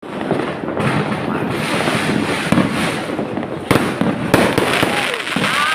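Fireworks going off: continuous crackling with two sharp bangs a little past halfway.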